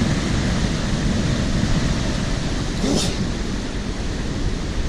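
Storm waves from the lake washing in over a flooded trail: steady rushing water, with wind buffeting the microphone. A brief faint sound about three seconds in.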